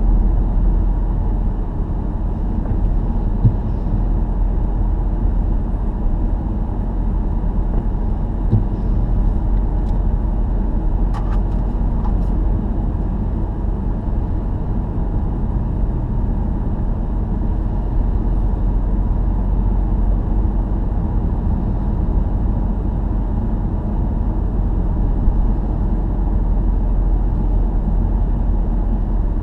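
Steady low rumble of a car's road and engine noise, heard from inside the cabin while cruising at speed. A few faint clicks come about midway.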